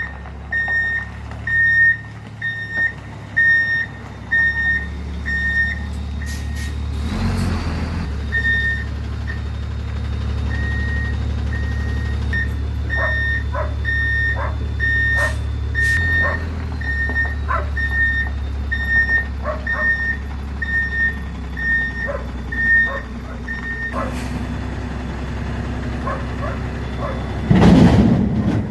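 Truck reversing with its backup alarm beeping evenly, over the steady low running of its engine. A dog barks at times in the middle, and there is a loud burst of noise near the end.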